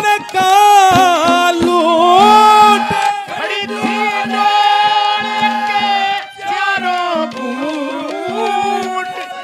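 Haryanvi ragni music: a male singer holds a long, wavering sung note over harmonium and dholak for about the first three seconds. Then the harmonium and dholak carry on alone in an instrumental interlude with steady held chords and a drum beat.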